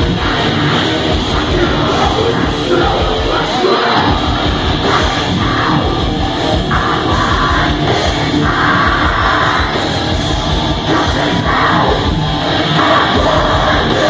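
Heavy metal band playing live and loud, with distorted electric guitars and drums.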